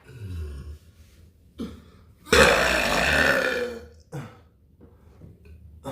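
A person burping: one long, loud belch lasting nearly two seconds, starting about two seconds in, with a few short, weaker sounds around it.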